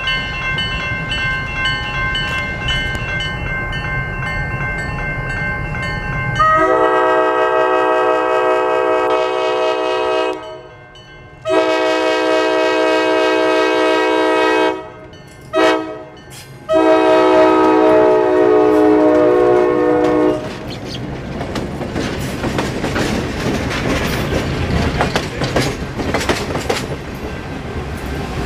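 Diesel locomotive of a passenger train sounding its multi-chime air horn in the long, long, short, long pattern of a grade-crossing signal. Then the train rolls past close by, its wheels clattering over the rail joints.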